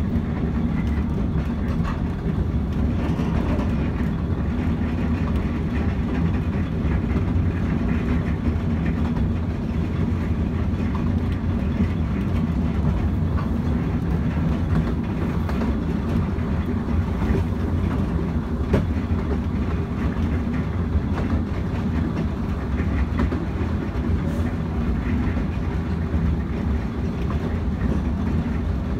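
Ride noise of a 15-inch-gauge narrow-gauge railway carriage on the move, heard from inside at the window: a steady rumble of wheels on the track, with scattered faint clicks from the rails.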